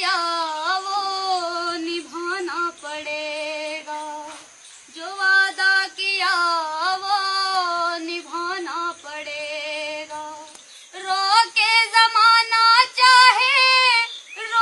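A high female voice singing unaccompanied, a slow melody of long held, wavering notes in three phrases with brief breaths between them.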